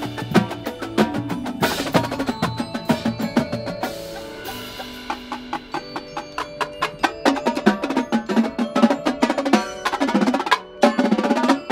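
Marching percussion ensemble playing together: a drumline of tenor drums, snare drums and bass drums with cymbals, over marimbas and other mallet keyboards. A softer passage of held mallet tones comes about four seconds in, then dense, loud, rapid drum strokes come back.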